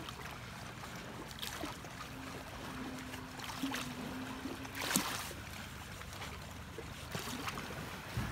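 Small lake waves lapping against shoreline rocks, with a few sharp slaps of water, the loudest about five seconds in, over wind on the microphone. A faint steady hum comes in about two seconds in and stops before the five-second mark.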